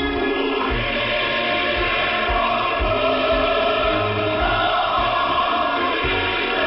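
Choral music received from a shortwave radio broadcast, with a narrow, band-limited sound that has nothing above about 5 kHz.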